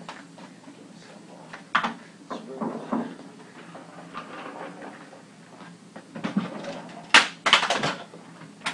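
Hospital over-bed table and bedside equipment being handled and moved into place: scattered knocks and rattles, with a cluster of sharp clunks about seven seconds in.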